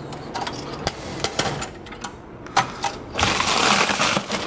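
Handling inside a metal post office box: scattered light clicks and knocks, then about three seconds in a loud rustling scrape lasting just over a second as a plastic mailer envelope is dragged out of the box.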